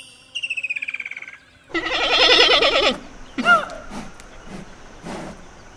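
Giant panda bleating: a fast rattling trill, then one loud, wavering, goat-like bleat about two seconds in, and a shorter call a second later.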